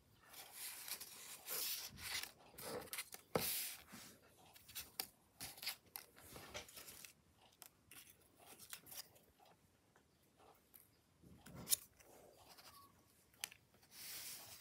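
Paper rustling and crinkling as cut-out paper pieces are handled, folded and set down, with scattered taps and clicks. The rustling is busiest in the first half, thins out in the middle, with a sharp click near the twelve-second mark and more rustling near the end.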